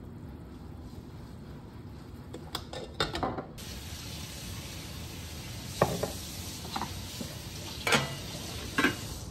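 Cooking in a pot: a steady simmering hiss that becomes brighter about a third of the way in, with a few sharp knocks and clinks of utensils and a glass lid. The last clinks are the glass lid being set on a rice cooker.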